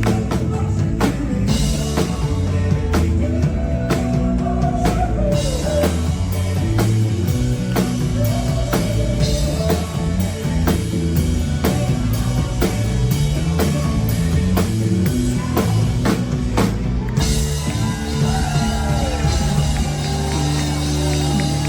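Live rock band playing: a drum kit struck hard over bass and electric guitar, with a singing voice on top. The frequent drum hits thin out about seventeen seconds in.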